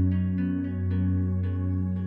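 Ambient new-age background music: a steady low drone under a sustained chord, with a melody of short struck notes over it.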